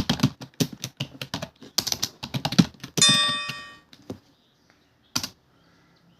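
Fast typing on a computer keyboard, several keystrokes a second for about three seconds. The typing stops, a single bell-like ding rings out and fades over about a second, and one more key click follows about five seconds in.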